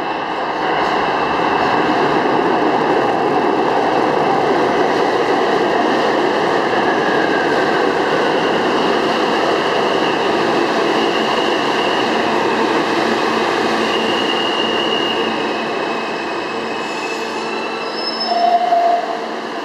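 An R160A-2 subway train pulls into an underground station and slows along the platform with a loud rumble and clatter. High wheel squeals come and go as it slows, and there is a brief louder squeal near the end as it stops.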